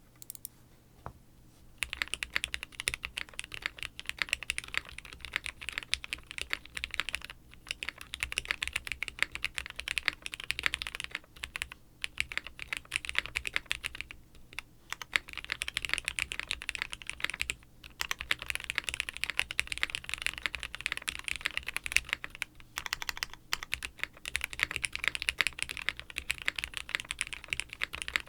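Fast continuous typing on a plateless tenkeyless mechanical keyboard with retooled Cherry MX Black linear switches and GMK keycaps, in a stacked acrylic case with taped flex cuts and a little cotton damping. The keystrokes start about two seconds in and run on with a few short pauses.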